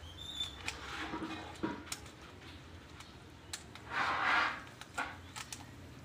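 Plastic 3x3 puzzle cube being turned by hand: scattered sharp clicks of its layers snapping round. About four seconds in comes a louder rustle lasting about half a second.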